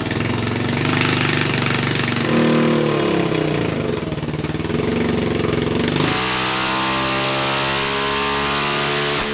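Small single-cylinder 225 cc four-stroke engine with a 285 cam running on an engine dyno. The throttle is blipped so the revs rise and fall twice, then about six seconds in it is held at high, steady revs, around 8,000 rpm, for a power pull.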